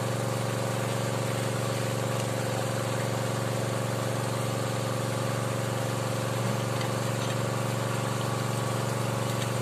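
Small engine-driven water pump running steadily at one constant speed, pushing flush water through a hose down a hand-turned well-drilling pipe.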